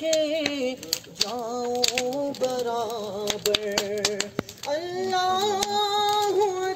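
A man singing a slow song into a microphone, drawing out long, wavering notes in a few phrases. Sharp crackles from a wood bonfire come through throughout.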